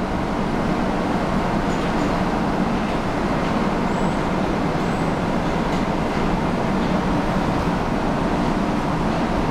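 Steady running noise of a 300 series Shinkansen standing at the platform, its onboard equipment whirring at an even level.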